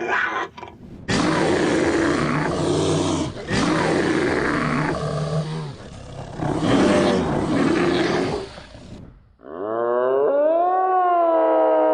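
A large wild animal roaring in a series of rough, deep calls over several seconds. Near the end these give way to a long, rising howl-like call with a clear pitch.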